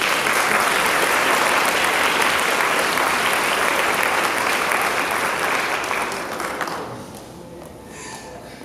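Audience applauding: steady clapping that dies away about seven seconds in.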